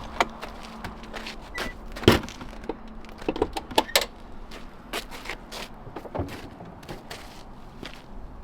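Irregular knocks, clicks and thuds of someone moving about and handling things at a parked truck, with one louder thump about two seconds in.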